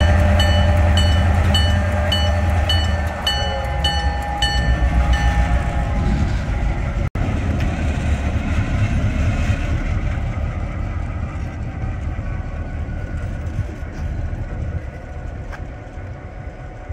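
Diesel locomotive hauling a passenger train away. Its deep engine rumble is loud at first, with a bell ringing rapidly for the first five seconds or so. The rumble of engine and wheels then fades steadily as the train moves off.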